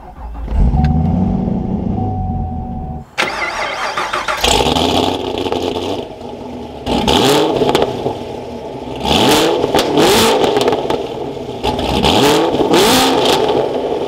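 2023 Chevrolet Camaro 2SS's 6.2 L V8 with modified exhaust starting up, catching about half a second in and running at a high idle, heard from the cabin. After a sudden change near three seconds it is revved repeatedly, about six blips that rise and fall in pitch.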